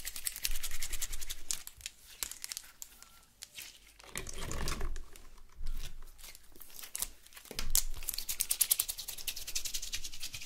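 Firm green slime squeezed by hand and pushed back into a clear plastic tube, giving rapid crackling clicks from the air pockets in it: one stretch near the start and a longer one over the last few seconds, with softer squishing between.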